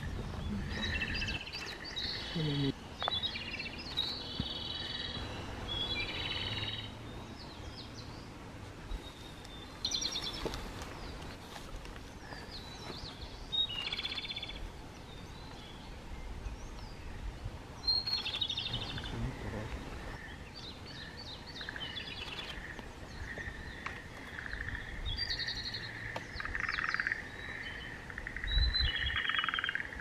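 Japanese robin (komadori) singing: short, fast-rattling trilled phrases repeated every second or two. A thin steady high note runs underneath in the second half.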